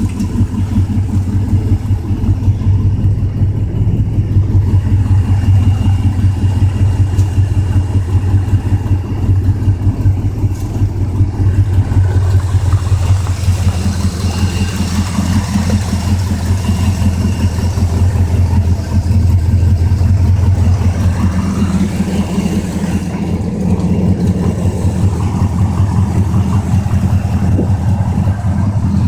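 1967 Ford LTD's V8 engine idling steadily while warming up, its note filling out slightly about halfway through.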